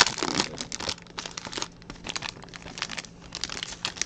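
Plastic trading-card pack wrappers crinkling and tearing as packs are opened and handled: a dense run of crackles for about two seconds, then scattered crinkles.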